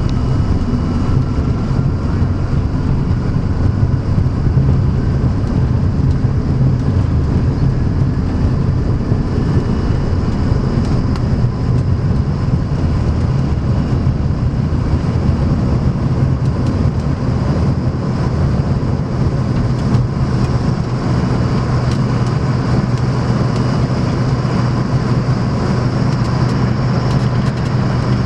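Jet airliner's engines at takeoff power heard from inside the cabin, a loud steady roar with the rumble of the wheels on the runway during the takeoff roll. A faint whine rises early on as the engines spool up, and the deepest rumble thins partway through as the plane leaves the ground and climbs.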